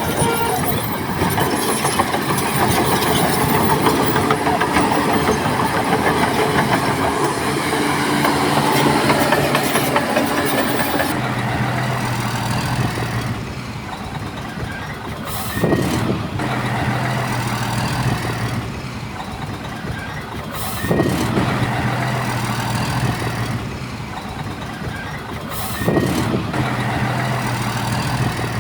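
Heavy diesel earthmoving machinery at work. A dense, loud clattering rumble lasts about the first eleven seconds. Then a diesel engine runs steadily, with a short rev about every five seconds.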